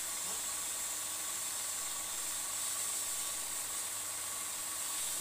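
Steady hiss of a hose nozzle spraying a fine water mist over straw beds.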